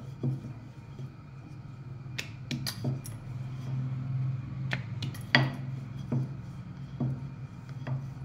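Wooden rolling pin clicking and knocking irregularly on a marble rolling board as a thin round of dough is rolled out, over a steady low hum.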